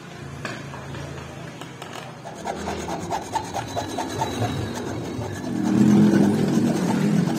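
Rapid back-and-forth rasping strokes of a hand file, about four to five strokes a second, getting louder about five and a half seconds in.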